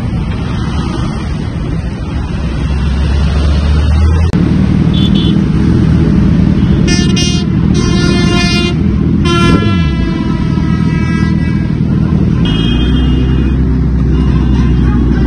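Motorcycle engines running as a group of superbikes rides along a highway, with vehicle horns sounding in two long blasts about seven and nine seconds in.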